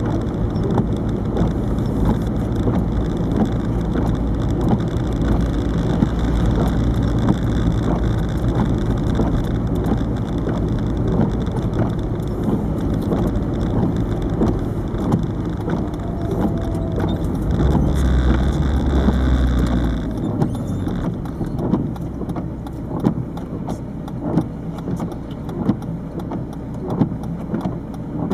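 Inside the cabin of a 1998 Peugeot 306 turbo diesel on the move: the diesel engine's drone and road noise, with frequent light rattling clicks from a dash-mounted camera. About twenty seconds in, the deep engine drone drops away.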